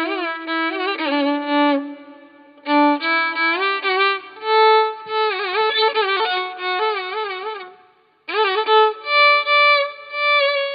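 Background music: a solo violin melody with wavering, sliding pitch ornaments, played in phrases that break off briefly about two seconds in and again near eight seconds.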